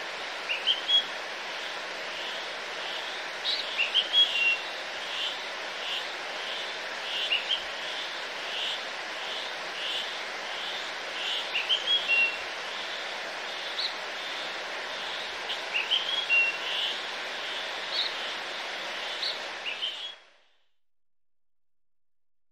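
Birds chirping over a steady rushing background noise, with a short note repeated about every half second for a stretch. The whole ambience cuts off suddenly about twenty seconds in.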